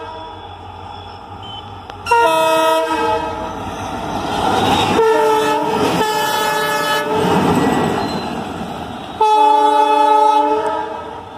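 WDG4 diesel locomotives running light at speed. A short multi-tone air-horn blast comes about two seconds in, then a longer horn sounds over rising engine and wheel noise as they pass close by. Another locomotive's horn blasts for over a second near the end.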